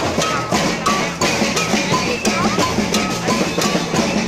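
Street-parade percussion: drums and clanging metal struck in a steady beat by marchers.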